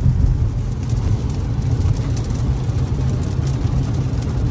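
Steady low rumble of a car driving on a wet highway, heard from inside the cabin: tyre and road noise with the engine beneath, and faint scattered ticks of rain on the car.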